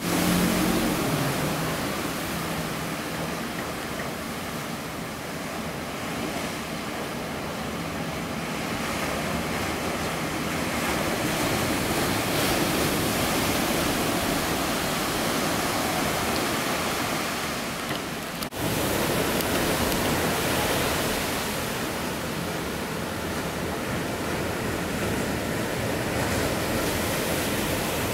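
Breaking ocean surf: a steady wash of noise that slowly swells and eases, with a brief dropout about two-thirds of the way through.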